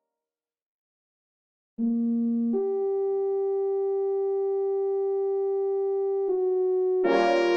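Computer-rendered brass playback from a score: near silence for almost two seconds, then a soft brass line enters with long held notes, and about seven seconds in the full brass ensemble comes in loudly on a sustained chord.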